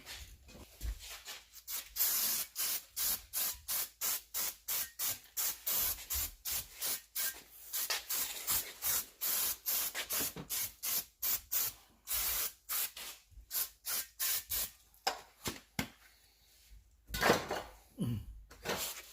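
Aerosol brake cleaner sprayed in short, rapid spurts, about three a second, to blast brake dust off the rear hub and brake parts. A couple of louder hissing bursts come near the end.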